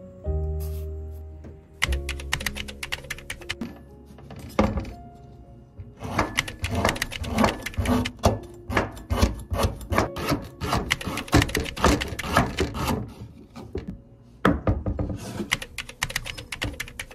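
Background music with runs of rapid, sharp knocks, densest through the middle stretch.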